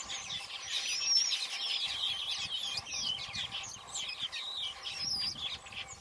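Chorus of small birds chirping and twittering: many quick, high, overlapping calls and trills throughout.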